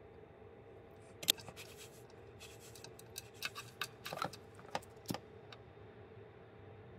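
Light clicks and scrapes of small parts being handled: insulated wires and a small DC power jack being fitted against a plastic enclosure, over a faint steady hum. The clicks come irregularly from about a second in to past the middle, the sharpest one near the start.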